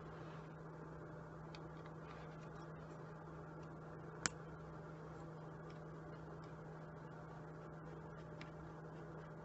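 Faint clicks and ticks of a scooter carburetor being taken apart by hand, with one sharp click about four seconds in, over a steady low hum.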